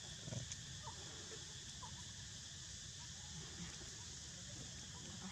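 Steady outdoor insect buzz over a low rumble, with two faint short squeaks about one and two seconds in.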